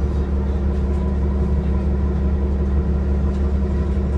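Steady low drone inside a 2022 Nova Bus LFS transit bus, its Cummins L9 diesel engine running evenly under the cabin rumble.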